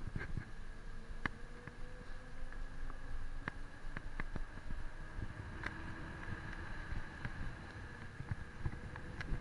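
Wind buffeting the microphone and tyre rumble from an ST 520 mountain bike riding at speed on tarmac, with scattered sharp clicks and rattles from the bike.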